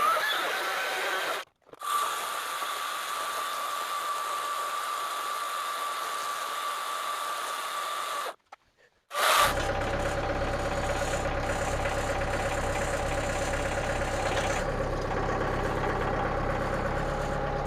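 Tractor engine running at a steady idle, starting after a short break about nine seconds in. Before that, a steady hiss with a thin high whine, broken by two brief silences.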